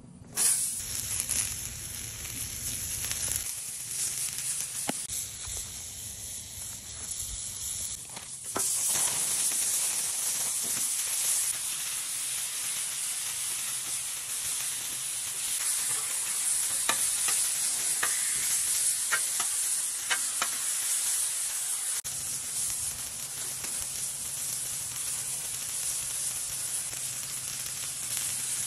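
Food frying on a Blackstone flat-top griddle: steak, eggs and bagels sizzling in a steady hiss that gets louder about eight seconds in.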